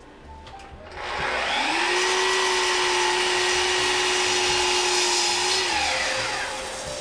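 Sliding compound miter saw switched on about a second in. Its motor whine rises quickly to a steady pitch, holds for about four seconds, then winds down.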